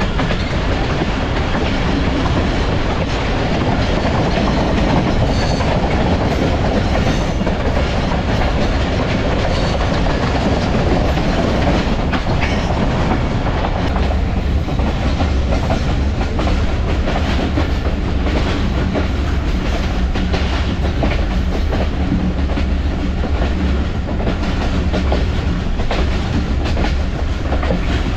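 Passenger train running at speed, heard from on board: a steady rumble and rush with wheels clicking over rail joints. The low rumble gets heavier about halfway through.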